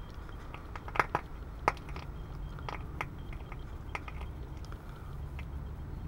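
Water at a rolling boil in a steel cup on a Swiss army Notkocher 71 gel-fuel stove: irregular sharp pops and crackles over a steady low rumble.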